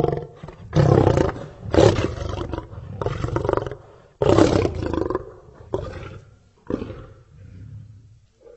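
Lion roaring: several long, loud roars, then shorter, fading calls about a second apart as the bout tails off.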